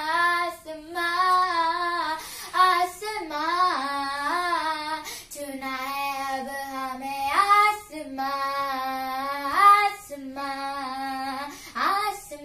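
A young girl singing a Hindi song solo, with no accompaniment, in long held notes broken into short phrases, sliding up into a note several times.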